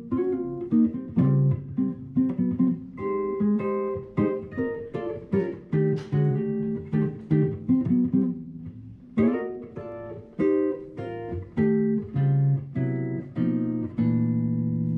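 Acoustic guitar playing: a run of plucked notes and strummed chords, with a held chord near the end.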